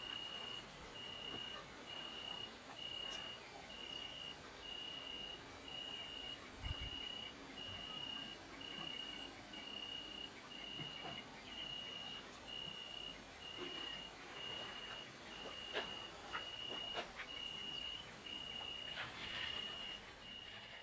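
Quiet outdoor cricket chorus. One cricket sings evenly spaced half-second trills about once a second over a steady high-pitched insect hiss, and a few faint ticks are heard.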